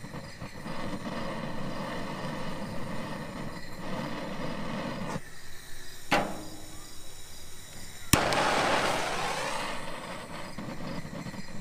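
Handheld propane torch on a blue Bernzomatic cylinder sputtering. A steady flame hiss drops out about five seconds in, followed by a sharp click. A second click about eight seconds in brings a sudden loud rush of flame as it catches again, settling back to a hiss. The torch is struggling, which its user puts down to running out of gas.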